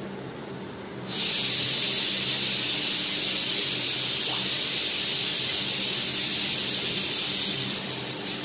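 A loud, steady hiss that starts suddenly about a second in and stops near the end, over a faint low hum.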